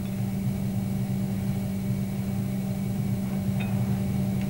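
Steady low machine hum, even and unbroken, with a faint light click a little after three and a half seconds in.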